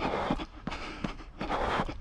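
A runner's footsteps on a path, about three strides a second, with hard breathing rising and falling between them.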